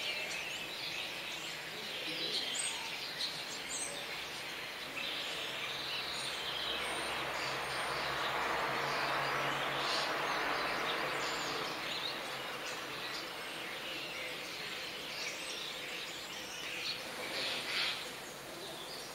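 Starlings chirping and whistling in short calls over a steady background hiss, with a broad rush of noise swelling and fading in the middle.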